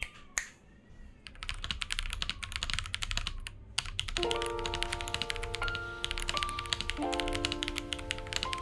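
Rapid typing on a stock Monka AE75, a gasket-mounted 75% mechanical keyboard with a polycarbonate plate and factory-lubed switches, a fast stream of keystrokes starting about a second and a half in. Background music with held chords comes in about four seconds in.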